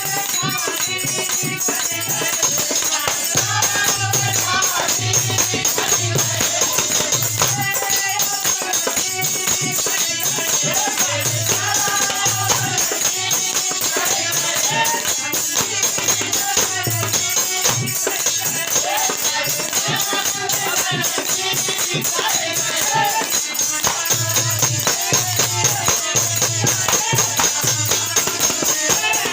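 Devotional bhajan: a sung melody over fast jingling percussion and a steady low drum beat.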